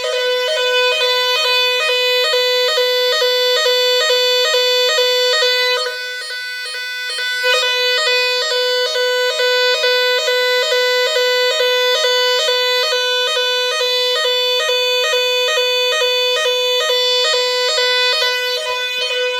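Nugelec type 4 fire alarm sounding its evacuation signal: a loud, reedy two-tone note that keeps repeating about twice a second without pause. This is the French standard evacuation tone (NF S 32-001).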